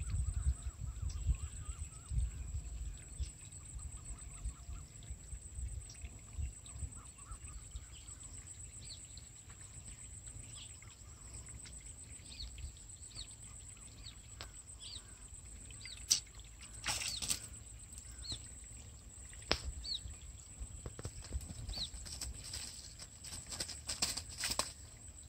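Small birds chirping in short, falling calls over a steady high-pitched whine, with wind rumbling on the microphone at the start. Near the end come bursts of sharp rustling and flapping in the grass as a freshly caught fish is handled.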